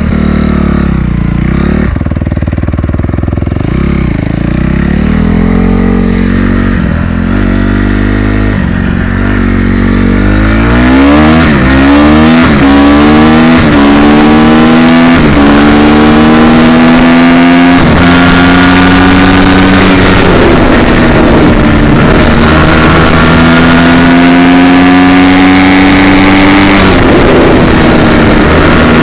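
Honda CRF250R's four-stroke single-cylinder engine being ridden hard. It runs lower with throttle on and off at first, then about ten seconds in it accelerates, its pitch climbing and dropping back with each upshift through several gears, before holding a fairly steady high rev.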